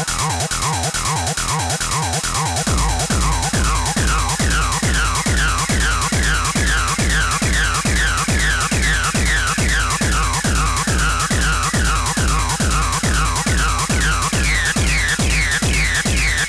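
Electronic techno track: a rapid repeating pattern of short falling synth chirps over a steady, heavy kick drum that comes in about three seconds in.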